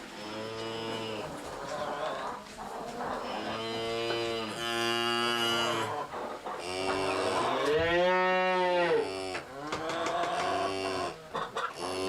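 Cow mooing repeatedly, about six moos, some long and drawn out, one of them rising and then falling in pitch.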